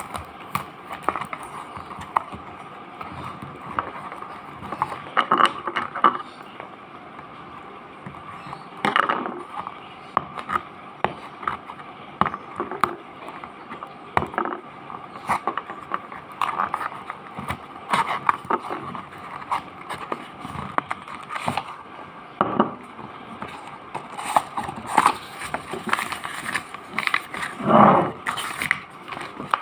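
Packaging of a Nin Jiom Pei Pa Koa cough-syrup box being handled and opened: irregular clicks, scrapes and crinkles over a steady background hum, with a longer scraping rustle near the end.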